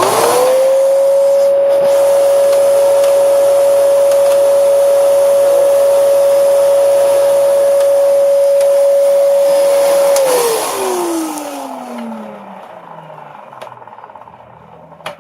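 Dyson DC07 upright vacuum cleaner switched on: the motor spins up in under a second to a loud, steady whine. It runs for about ten seconds, then is switched off and winds down with a falling whine over a few seconds.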